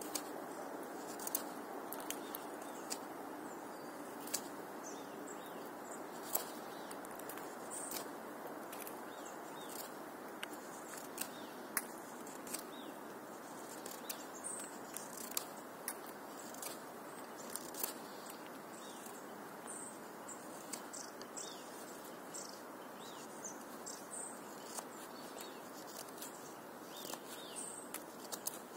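Morakniv 106 carving knife shaving a wooden stick while feather-sticking, its blade biting deep: short scraping cuts come irregularly, about one or two a second, over a faint steady background hiss.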